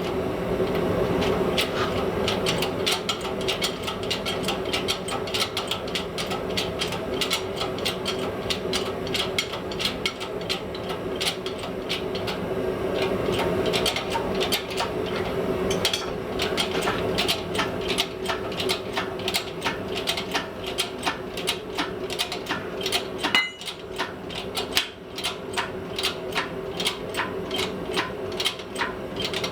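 A long run of rapid hammer blows on hot steel, forging out the cutting edge of a steel hardy tool, with a brief break about two-thirds of the way through. A steady hum runs underneath.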